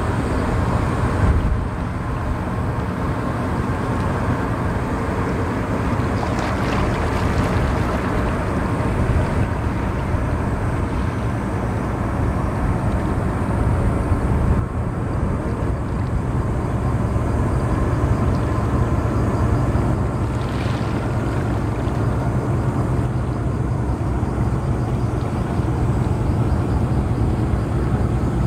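Steady low rumble of a Murasame-class destroyer's gas-turbine propulsion carrying across the water as the warship passes.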